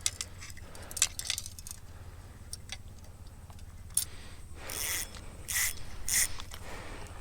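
Fishing tackle being handled: a quick run of sharp mechanical clicks and ratcheting, then three short rasps about two-thirds of the way in, over a low steady rumble.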